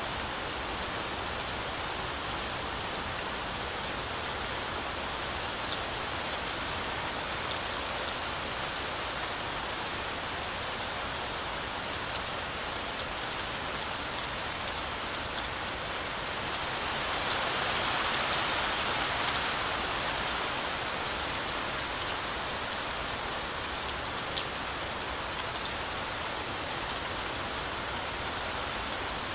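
Heavy rain falling steadily, a dense hiss with scattered drop ticks. It swells louder for a few seconds a little past the middle, then settles back.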